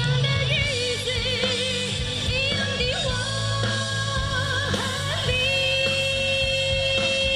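A woman singing live into a microphone over amplified backing music, her notes wavering with vibrato.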